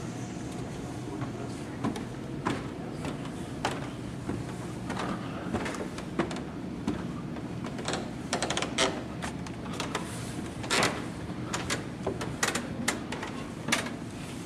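Footsteps and irregular knocks and clicks, more frequent in the second half, over a steady low hum.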